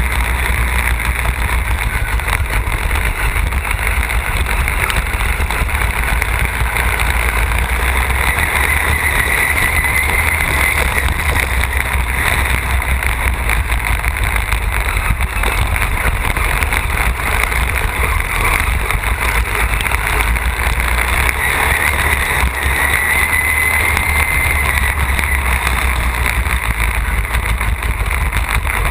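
Racing lawn tractor's engine running hard at speed, heard from right on its hood, with a low rumble and a high whine that wavers and rises twice.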